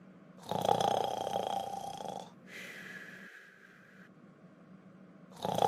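Cartoon character snoring: a loud rasping snore about half a second in lasting nearly two seconds, then a quieter, thinner, higher-pitched breath out, then a second loud snore starting near the end.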